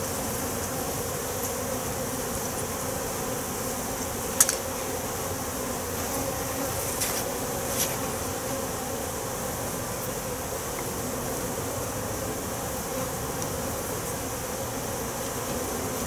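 A mass of honey bees buzzing steadily around an open hive box. A sharp knock comes about four seconds in, and two fainter clicks follow near seven and eight seconds as the wooden hive cover is handled.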